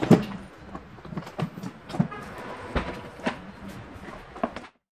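Irregular knocks and clicks of a plastic car door trim panel being handled and pressed onto the door, the loudest knock right at the start; the sound cuts off just before the end.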